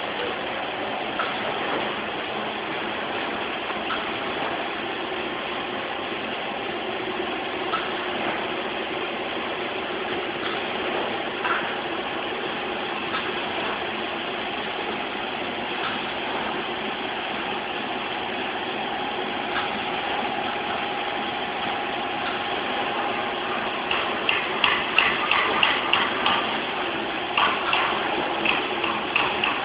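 Automatic seed and grain filling and packing line running, a steady mechanical hum with faint held tones. Near the end a run of rapid rattling clicks comes in over it.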